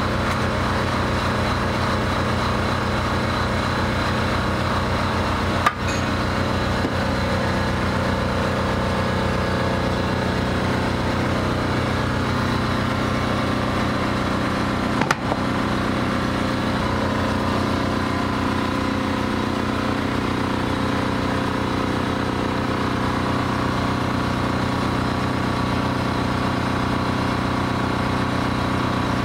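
An engine running steadily at an even speed, with two sharp clicks, about six and fifteen seconds in.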